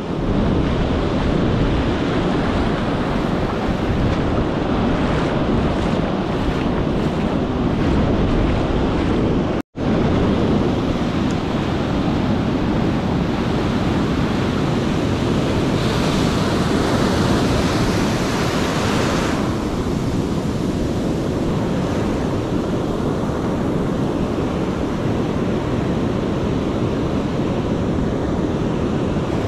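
Ocean surf breaking and washing up a sandy beach, a steady rushing noise mixed with wind buffeting the microphone. The sound cuts out for an instant about ten seconds in.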